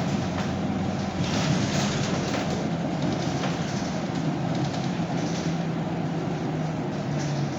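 Scania K230UB city bus heard from inside the cabin while driving: a steady diesel engine hum over road noise, with scattered short rattles from the body. The engine note steps a little lower about two-thirds of the way through.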